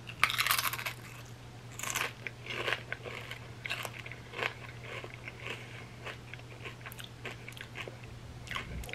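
A crunchy chip topped with a thick creamy dip is bitten with a loud crunch in the first second. It is then chewed with short, irregular crunches, several a second, all the way through.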